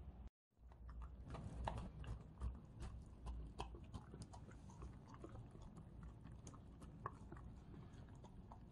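Small dogs eating soft, warmed cooked dog food from bowls: quick, irregular chewing and smacking clicks, starting about a second in.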